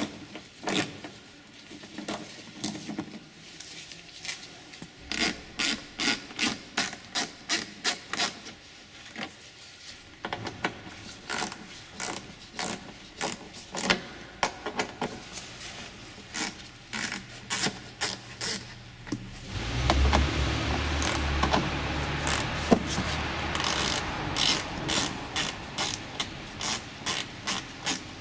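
Socket ratchet clicking in short quick runs as small screws are backed out of a plastic wheel-well liner. About twenty seconds in there is a louder stretch of a few seconds of rubbing noise with a low hum.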